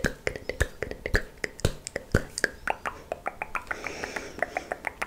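Close-miked ASMR mouth sounds of the 'coconut rain' trigger: rapid wet tongue clicks and bubble pops, several a second, with a short breathy hiss near the end.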